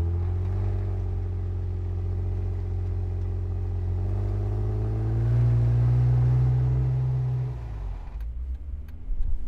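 Jeep Wrangler JK V6 exhaust through a Dynomax Super Turbo axle-back muffler, heard at the tailpipes as the Jeep drives: a steady exhaust note that climbs in pitch about four seconds in as the engine revs up, holds, then falls away near the end as the throttle is let off.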